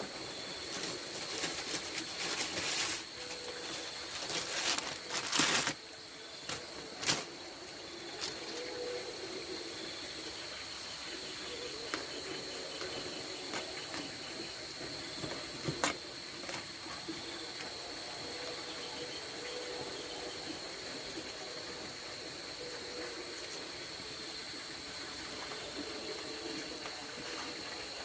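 Rice-field insects trilling steadily at high pitch. Several loud bursts of noise come in the first six seconds, and single sharp clicks come about seven and sixteen seconds in.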